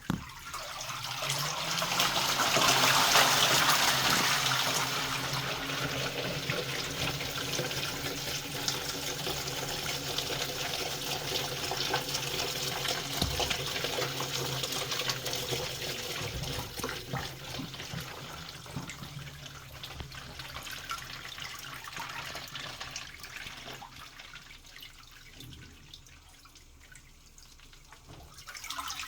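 LG washing machine taking in water: water pours into the drum with a steady hum underneath. It starts suddenly, is loudest in the first few seconds, then slowly grows quieter.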